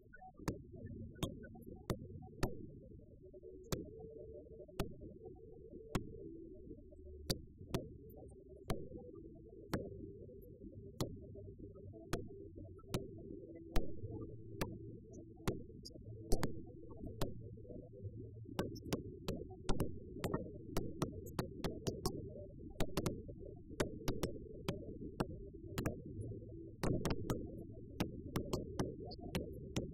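Muffled music with a steady low beat and held tones, cut through by sharp cracks of fireworks. The cracks come about once a second at first and crowd together in the second half as more shells burst.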